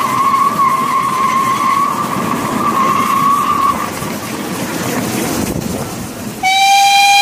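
Miniature steam train running along its track, the wheels squealing with a wavering high tone over the rumble of the ride for the first few seconds. Near the end the locomotive's whistle gives one short, loud, steady toot.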